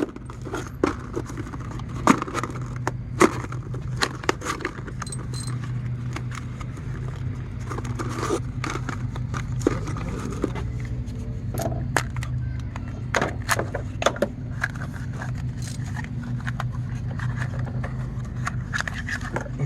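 Clicks, rattles and light scraping from handling a new spark plug and its packaging, over a steady low hum.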